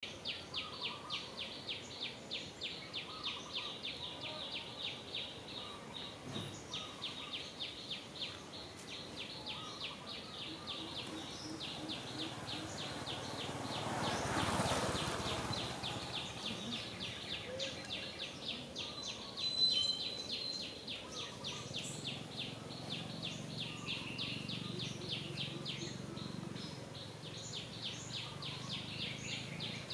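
Insects chirping in a rapid, even, high-pitched pulsing that carries on steadily. A brief swell of rushing noise rises and fades about halfway through.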